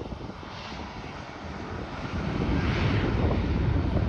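Jet airliner engine noise swelling from about two seconds in, a low rumble with a rising hiss, with some wind on the microphone.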